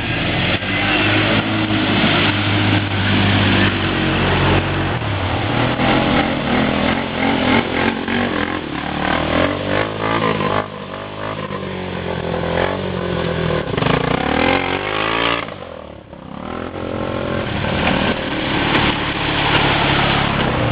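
ATV engine running and revving, its pitch rising and falling with the throttle. The engine drops off briefly about three-quarters of the way through, then picks up again.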